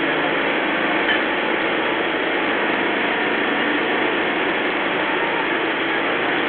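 Steady mechanical clatter and hum of an engine running without a break, most likely the motor that drives the floating restaurant raft.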